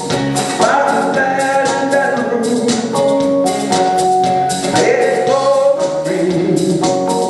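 Music: a man singing a country song over a backing of sustained keyboard chords and a steady drum beat.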